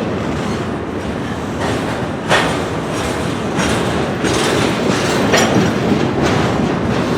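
Loaded freight cars of a long train rolling past close by: a steady rumble of steel wheels on rail, with sharp clacks about once a second as the wheels cross rail joints.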